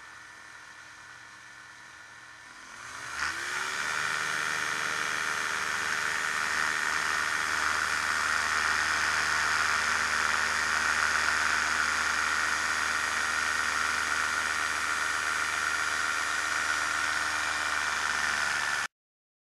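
Challenger II ultralight's pusher engine throttling up about two and a half seconds in, its pitch rising, then running steadily at high power through the takeoff run on skis and the climb-out. The sound cuts off suddenly near the end.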